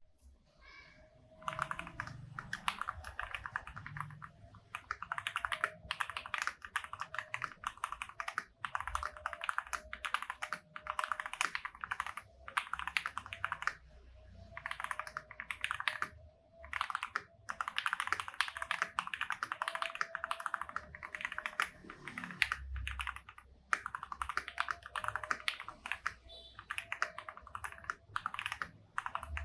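Fast typing on an FL-Esports MK870 mechanical keyboard with lubed Matcha Ice switches and Zodiac OEM-profile keycaps, tape-modded and case-foamed: dense runs of keystrokes broken by short pauses. The typing starts about a second and a half in.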